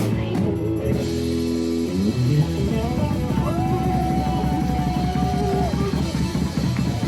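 Instrumental rock music with guitar, bass and drums; a lead line slides up into one long held note near the middle.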